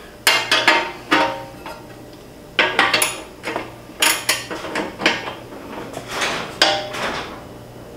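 Irregular sharp metallic clinks and clanks, about a dozen of them, some with a brief ring: a steel wrench and bolt hardware knocking against a steel bumper and mount while the bolts are snugged up.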